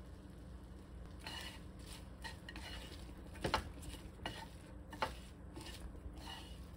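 Wooden chopsticks tossing garlic chives and scrambled egg in a nonstick frying pan: rustling, with a run of clicks against the pan starting about a second in, the loudest about three and a half seconds in. The heat is off, so there is little sizzle.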